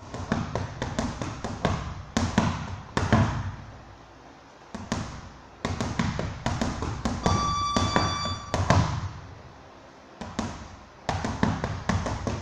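Boxing gloves striking a partner's held-up gloves in quick runs of punches and kicks, sharp slaps and thuds coming in bursts with short lulls about four and ten seconds in. A steady high tone sounds for about a second and a half midway.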